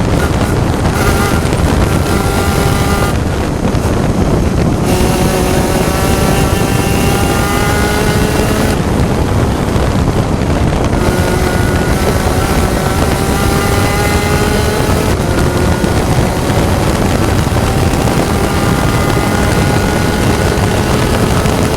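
Spec Racer Ford Gen3 race car engine heard onboard, the revs climbing in long pulls under acceleration, with a couple of brief lifts off the throttle and a gear change about 15 seconds in. Heavy wind noise over the microphone.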